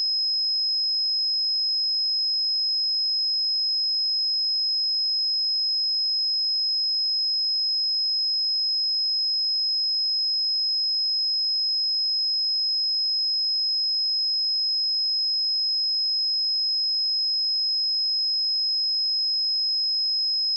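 A pure 5118 Hz sine-wave test tone, holding one steady high pitch at an even level, with nothing else.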